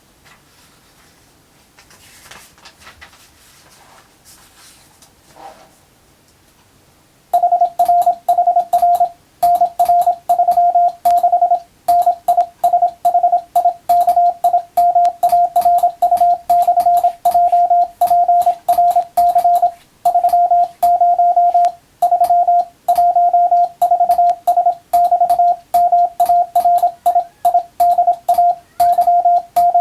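Morse code (CW) practice signal: one steady beep keyed on and off in dots and dashes, sending English-text telegram practice. It starts about seven seconds in after a quiet stretch, with a faint click at the start and end of each element.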